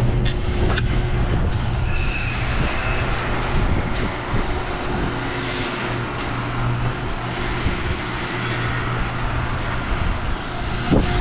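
Garage door opener running as the door travels, triggered from the wall keypad: a steady motor hum under a continuous rumble of the moving door, with two sharp clicks in the first second.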